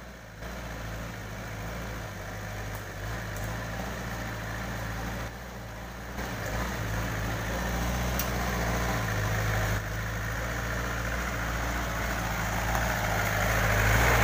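1981 Daihatsu Taft F50's four-cylinder diesel engine pulling steadily at light throttle in second gear with the transfer case in low, so the engine note stays light and free of vibration on the climb. It grows louder toward the end as the jeep comes close.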